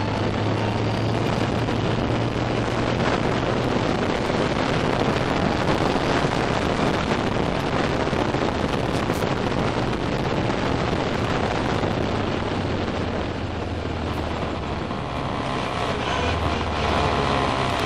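Ginetta race car's engine heard from inside the cockpit, running at steady revs under heavy wind and road noise. The engine note drops lower about halfway through and again near the end.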